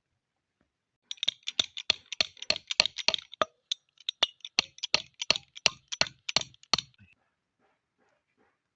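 A quick series of sharp taps, about three or four a second, starting about a second in and stopping about two seconds before the end.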